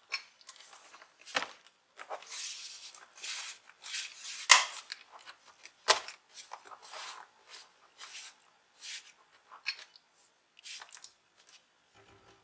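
Plastic laptop case being handled: a run of clicks, knocks and scraping as the laptop is turned over and the bottom cover is pressed into place along its edges. Three sharper knocks stand out about a second and a half, four and a half and six seconds in.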